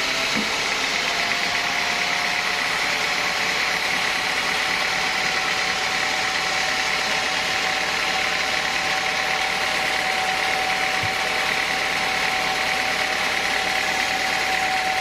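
Sawmill saw running steadily, a constant whine held at one pitch over a loud, even mechanical din.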